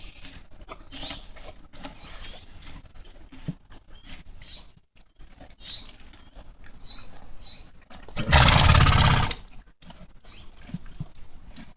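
Horse eating feed, with faint crackling munching throughout and short high chirps, then one loud fluttering blow through the nostrils, a snort lasting about a second, some eight seconds in.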